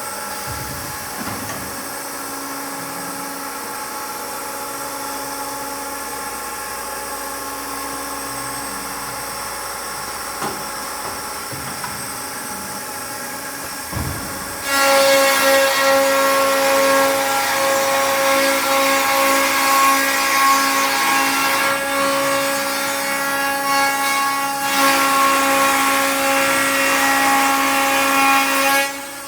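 Triad CNC stair router running. A steady machine hum for the first half, then the router motor starts with a loud, even whine about halfway through. It runs for about fourteen seconds, dipping briefly twice, and stops just before the end.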